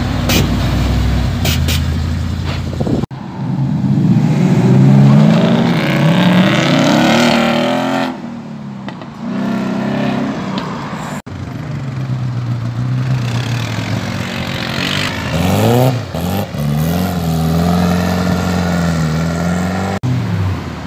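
Cars driving off one after another, engines revving and accelerating: a low rumble at first, then engine notes rising in pitch as they pull away. The sound breaks off abruptly a few times.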